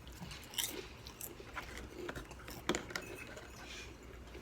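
Faint crunching and scattered clicks of a person eating potato chips, with one sharper click a little past halfway.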